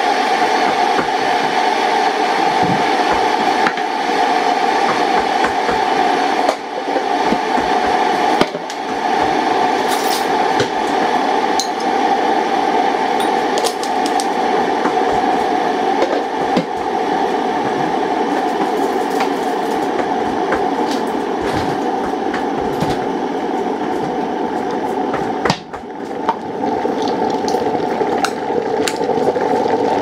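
Electric kettle heating water up to the boil: a steady, loud rushing rumble, with a few light clicks and knocks from the counter on top.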